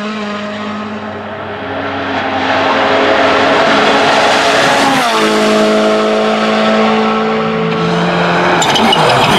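Rally car engines running hard at full throttle. The engine note drops sharply in pitch about halfway through, then holds steady. A spray of sharp crackles comes near the end.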